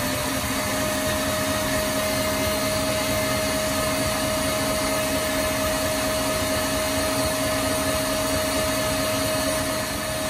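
KitchenAid tilt-head stand mixer running steadily at high speed, its wire whisk beating egg whites into meringue in a stainless steel bowl. The motor gives an even whine over a hum.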